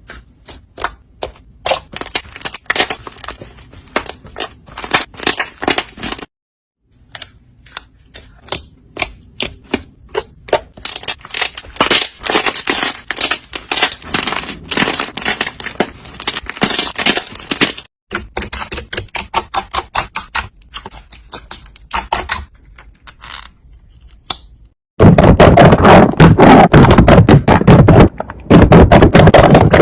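Slime being squeezed and poked, giving runs of sticky clicks and pops in several short takes with brief silent breaks. Near the end it turns into a much louder, dense crackling.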